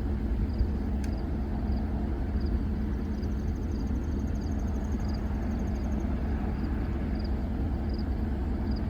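A steady low rumble with no clear events in it. Over it, crickets chirp about once a second, and a higher insect trill runs through the middle for about three seconds.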